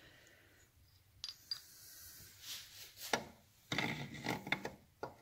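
A steel gear shaft with its gear being worked into the aluminium casing of a Triumph 4-speed gearbox: metal rubbing and scraping, with a sharp click about three seconds in and a run of clinks and rattles near the end.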